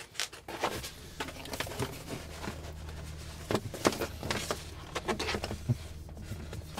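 Scattered light clicks, taps and rustles of vinyl wrap film being handled and smoothed onto a panel, over a steady low hum that starts about a second in.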